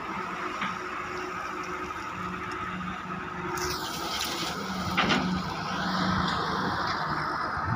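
Wheeled excavator's diesel engine running steadily. About three and a half seconds in, the bucket tips a load of gravel into a steel dump-truck bed: a rushing pour of about a second and a half that ends in a sharp knock.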